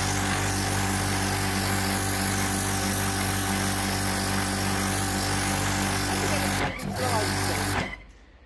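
Pressure washer running steadily, its motor hum under the hiss of the water jet on the concrete walkway. It cuts out for a moment about seven seconds in, then stops shortly before the end.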